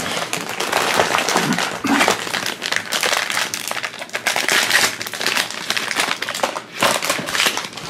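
Crinkly blind-bag wrapper rustling and crackling in the hands as it is pulled from the box and opened to get at the domed figure inside.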